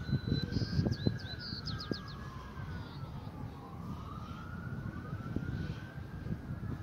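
An emergency vehicle siren wailing, its pitch slowly rising and falling about every three to four seconds, over a low outdoor rumble. A few short bird chirps come in the first two seconds.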